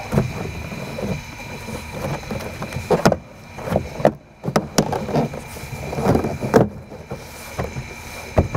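Plastic door trim panel being handled and fitted onto a car's rear door: irregular scraping, rubbing and light knocks of the panel against the door frame, the loudest about three seconds in and again near the end.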